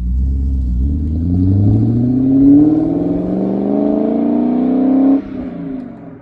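BMW E39 M5's V8 engine climbing steadily in revs for about five seconds, then dropping off suddenly as the throttle is released.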